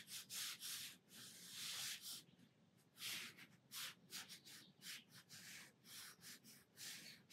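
Fine round watercolour brush stroking on textured watercolour paper: a faint, irregular run of short brushing strokes.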